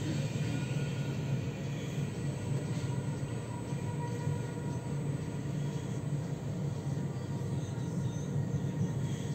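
Tram running along its track, heard from inside the passenger car: a steady low rumble with a few faint, steady high-pitched tones above it.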